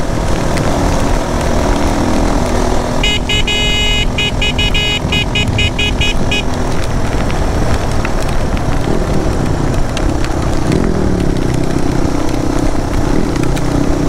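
Motorcycle engine running with wind and road noise. A few seconds in, a horn beeps in a quick rapid series for about three and a half seconds. Later the engine note shifts and climbs.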